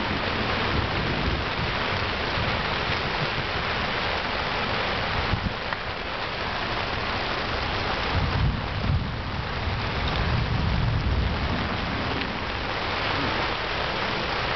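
Steady heavy rain falling on a canopy tent's fabric roof, with a low rumble swelling about eight seconds in and fading a few seconds later.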